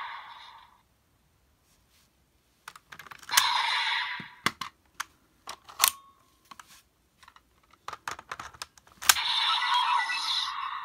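Plastic clicks and snaps of toy raise buckles being handled and fitted into a Kamen Rider Geats toy belt, scattered over several seconds. They come with a short burst of electronic sound from the toy, a brief beep near the middle, and a louder electronic sound effect from the belt starting near the end.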